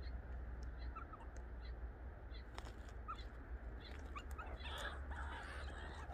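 Meerkats giving short, high chirps, scattered irregularly, with a louder, harsher noisy call near the end. A low, steady rumble runs underneath.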